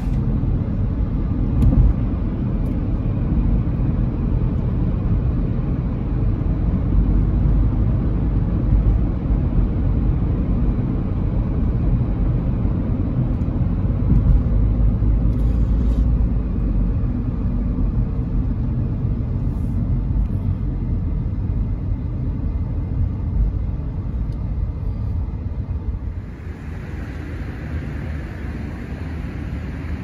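Road noise heard from inside a moving car: a steady low rumble of tyres and engine. Near the end the rumble gives way to a lighter, higher hiss.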